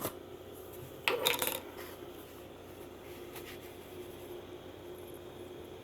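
A short clink and clatter of kitchen utensils against a cooking pot about a second in, followed by a faint steady hum.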